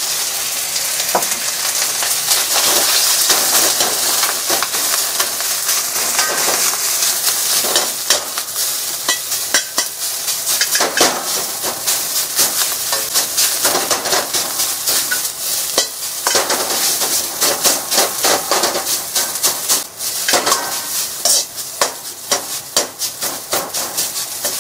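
Thawed cooked rice frying with a steady sizzle in a hot iron wok, while a metal ladle breaks it up and stirs it, scraping and clicking against the pan many times.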